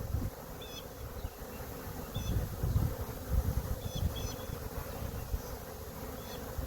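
Honey bee swarm buzzing all around, a steady hum of many bees stirred up from their cluster in a tree.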